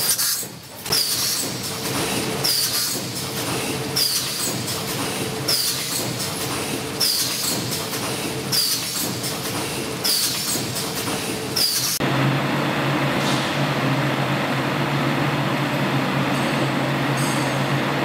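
Automatic spouted-pouch filling and sealing machine running, with a hiss and clack repeating about every second and a half. About two-thirds of the way through, the sound changes abruptly to a steady machine hum.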